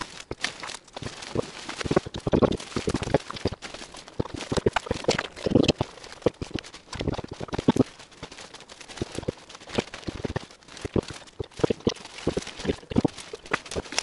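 Footsteps through tall grass and bracken ferns, with stems and leaves brushing and crackling against the walker and the camera: irregular soft thuds and rustles.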